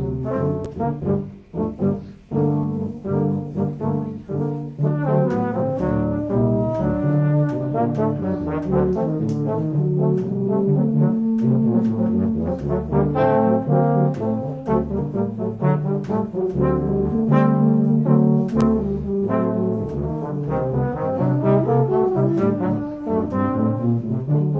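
Background music led by brass instruments, playing sustained, changing chords.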